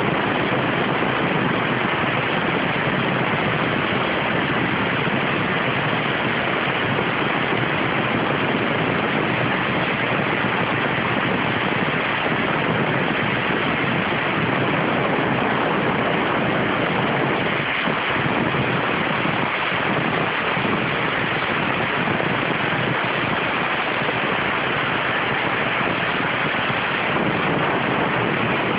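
CNC waterjet's high-pressure jet hissing steadily as it cuts thin stainless steel sheet.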